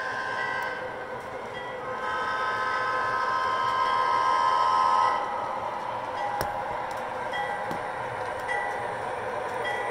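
Model Dash 8 locomotive's onboard sound system sounding its horn, a held chord from about two seconds in that cuts off sharply about five seconds in, over the steady running noise of the long model train on the track. A bell dings about once a second through the rest.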